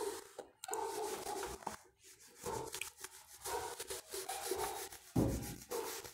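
Handheld duster wiping a whiteboard in repeated back-and-forth rubbing strokes, with a thump against the board about five seconds in.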